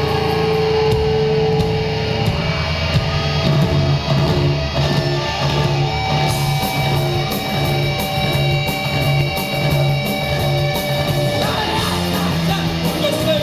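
A rock band playing live at loud volume: distorted electric guitars over bass and drums. About six seconds in, the cymbals come in hard.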